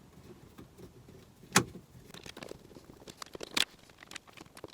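Scattered sharp clicks and knocks of a screwdriver and hand working at a car's dashboard, undoing the radio's Torx screws. The loudest click comes about a second and a half in, another strong one about two seconds later, with lighter ticks between.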